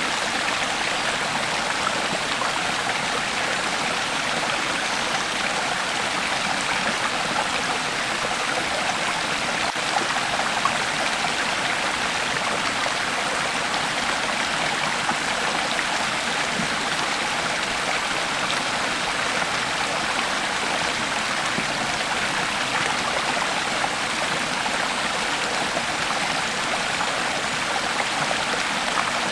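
Creek water flowing over rocks: a steady, even rush and babble that holds without change.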